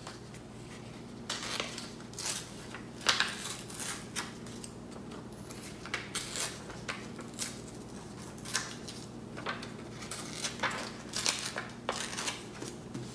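Coloured paper being torn by hand: short, scratchy rips and crinkles at irregular intervals as the corners of a paper triangle are torn off.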